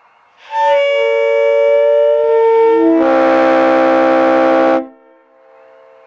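Air horns, a Leslie RS-3L train horn and a truck horn, blasting. A chord of several steady notes sounds first, then a louder, lower and rougher chord takes over about halfway through. Both cut off sharply near the end, and an echo fades after.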